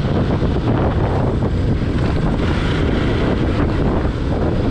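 Steady, loud wind noise buffeting the microphone of a moving motorcycle, with road and engine rumble underneath.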